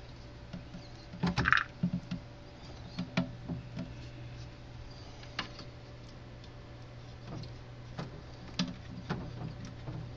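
Handling noise from a glass terrarium: scattered clicks and knocks as a hand works inside the enclosure and the camera bumps against the light fixture, loudest about a second and a half in, over a steady low hum.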